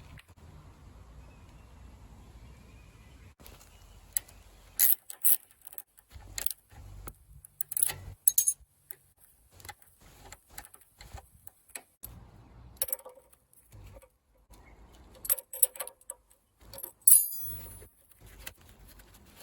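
Hand tools and metal motorcycle parts clinking and clicking in scattered, irregular strikes, some with a brief high metallic ring; the loudest clink comes about 17 seconds in.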